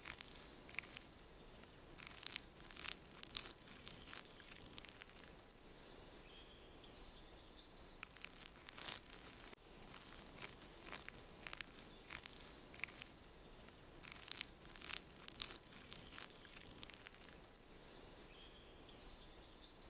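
Faint crackling and clicking with a brief high chirp about seven seconds in and again near the end; the whole pattern repeats about every ten seconds, as a looped background ambience does.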